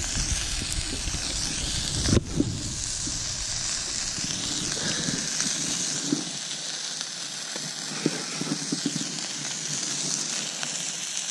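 Sausages sizzling in a pan, a steady hiss with a sharp thump about two seconds in.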